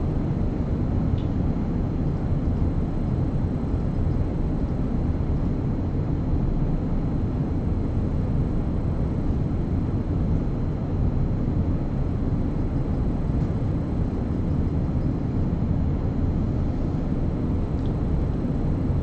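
Steady low rumbling background noise with no speech, unchanging throughout.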